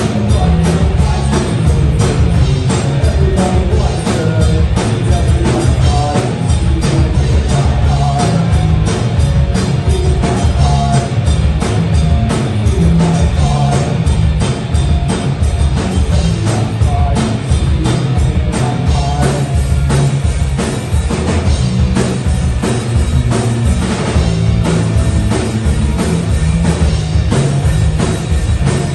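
Live rock band playing loud, with electric guitars, bass guitar and a drum kit keeping a steady beat.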